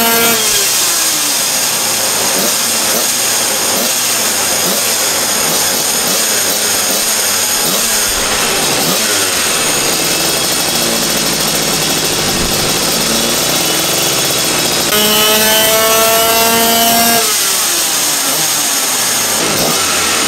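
Division 1 Superkart's 250cc twin-cylinder two-stroke engine under full-power dyno runs. It comes off high revs and winds down right at the start, runs rough and uneven through the middle, then is held near peak revs for about two seconds from roughly fifteen seconds in before shutting off and falling away.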